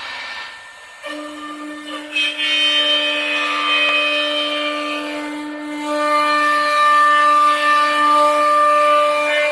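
CNC wood router cutting a wooden chair back: the spindle gives a steady whine that comes in about a second in, and the noise of the cut grows louder from about two seconds in.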